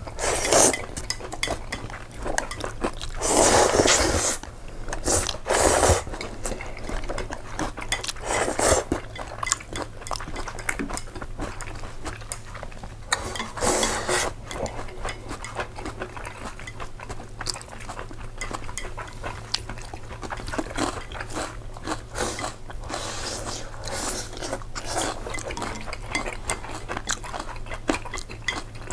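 A person eating oil pasta close to the microphone: chewing and slurping, with cutlery clinking on the dish. A few louder bursts of about a second each stand out, mostly in the first half.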